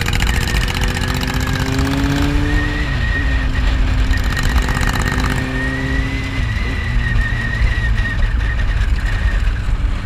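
Kawasaki Z800's inline-four engine running as the bike is ridden along, under heavy wind rumble on the microphone. The engine note rises gently, drops about three seconds in as the throttle eases, then holds steady with another dip around six seconds.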